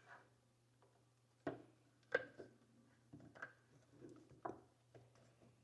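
A few light plastic clicks and knocks with soft handling sounds as a license plate light is fitted into a 3D-printed fender eliminator, over a faint steady hum.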